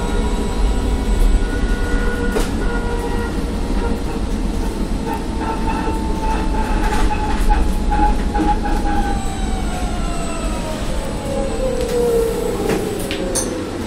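Electric minibus riding, heard from inside the cabin: a low rumble with the traction motor's thin whine on top and a few rattles. The whine falls in pitch over the last few seconds as the bus slows down.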